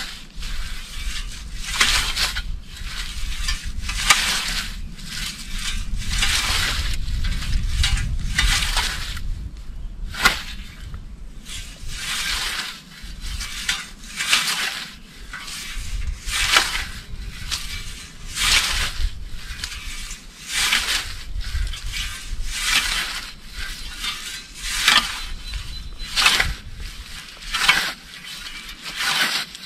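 Scythe blade swishing through grass, stroke after stroke, a hissing swish roughly every second.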